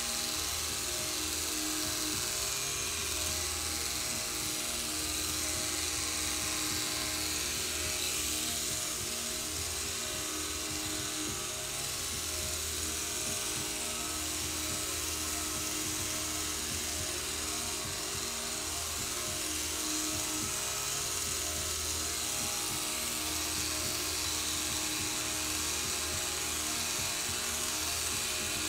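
Corded electric hair clippers buzzing steadily as they shave a long-haired cat's coat, with music playing underneath.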